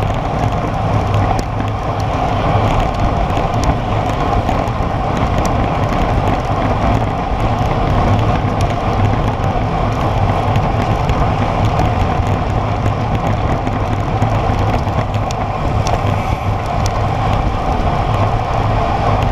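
Steady rush of wind over a bike-mounted camera's microphone, mixed with road-bike tyres running on asphalt, during a group ride at about 45 km/h.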